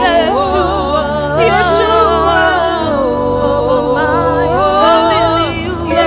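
Gospel worship music: a voice sings long, sliding, ornamented notes over steady held chords and a low bass.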